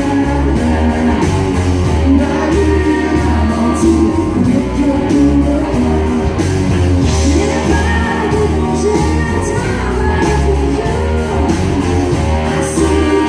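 Live country-rock band playing on amplified guitars, bass and drums, with vocals over a steady beat.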